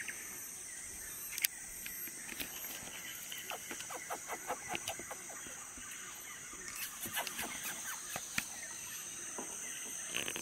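Rainforest insects keep up a steady, high-pitched drone, with scattered short bird chirps over it. A couple of sharp knocks stand out, one about a second and a half in and another near the end.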